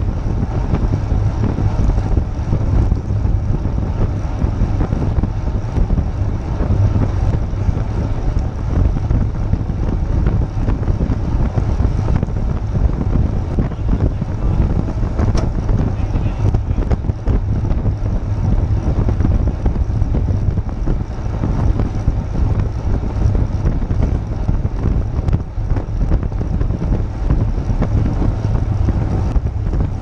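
Wind buffeting the microphone of a bicycle-mounted action camera, with steady tyre and road rumble from a road bike rolling on a wet road. The rumble is low and continuous, with no distinct events.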